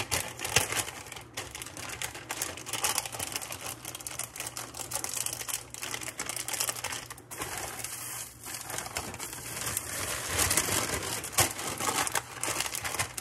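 Plastic bag of sliced cheese crinkling and rustling as hands dig into it and pull slices out: an irregular run of small crackles and clicks.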